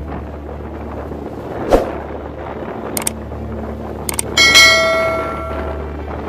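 Subscribe-button animation sound effects: mouse clicks about three and four seconds in, then a notification bell ding that rings out for over a second. A thump comes near two seconds in, over a steady low background drone.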